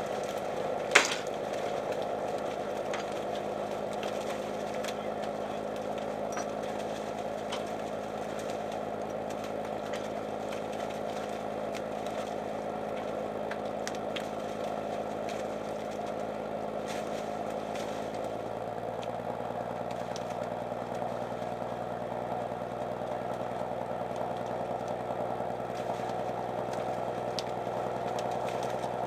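Engine and machinery of a salmon purse seiner running steadily, with one sharp knock about a second in. About two-thirds of the way through the engine note changes, as the speed shifts.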